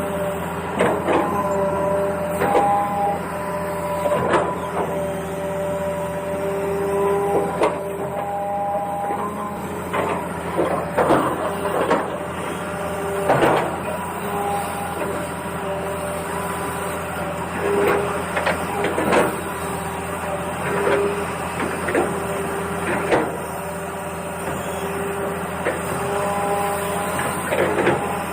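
Small electric motors of a radio-controlled toy excavator whining steadily, with one tone cutting in and out as the controls change, over repeated sharp clicks and knocks.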